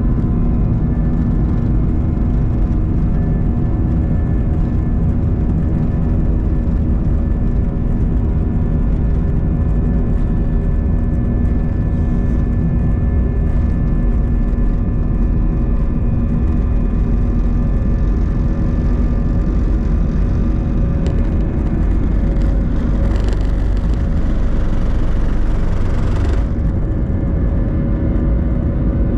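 Jet airliner's engines at takeoff power heard from inside the cabin: a loud, steady rumble with several steady whining tones through the takeoff roll and liftoff. A brighter rushing hiss swells about three-quarters of the way through and cuts off suddenly a few seconds later.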